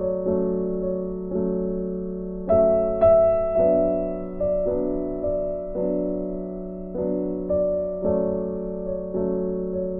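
Background piano music: notes and chords struck roughly once a second and left to fade.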